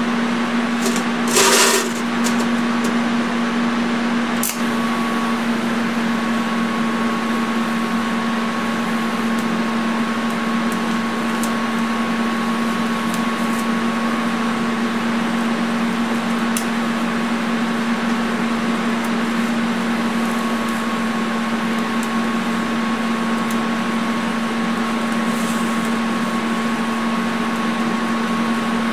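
Lincoln Square Wave TIG 200 welder running a TIG arc with a steady electrical buzz. A brief loud crackle about a second and a half in marks the arc starting.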